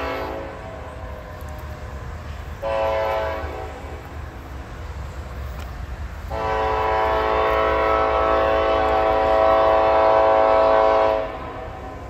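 Norfolk Southern diesel freight locomotive's air horn sounding the grade-crossing signal from down the line. A blast dies away at the start, a short blast comes about two and a half seconds in, and a long blast runs from about six to eleven seconds in, over a steady low rumble.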